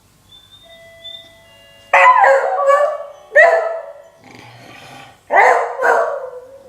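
Beagle bay-barking: three loud, rough bark-howls with a quieter one between, each starting with a drop in pitch, in the hoarse voice of an old dog. Faint steady tones come first.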